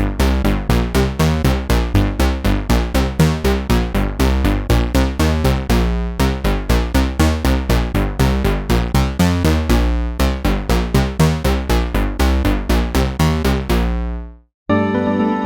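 Synthesizer arpeggio from a retro-style software synth patch: fast, evenly repeated plucked notes, about five a second, over a steady bass, fading out near the end. After a brief gap a different, sustained synth sound begins.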